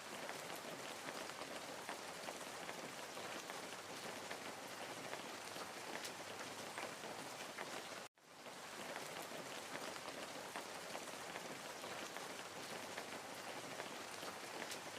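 Steady rain falling, an even hiss flecked with small drop ticks. It cuts out abruptly for a moment about eight seconds in and fades back up.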